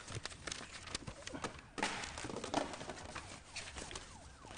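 Vinyl records and cardboard album sleeves being handled and shuffled: rustling with many light clicks and knocks, busiest from about two seconds in.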